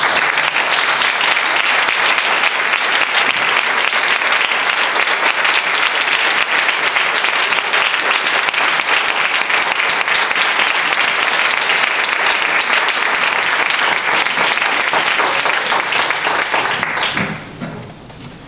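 Audience applause: many people clapping in a dense, steady patter that fades out about a second before the end.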